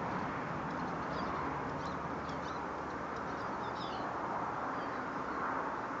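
Steady hum of road traffic, with faint short high chirps of small birds twittering at the feeder between about one and four and a half seconds in.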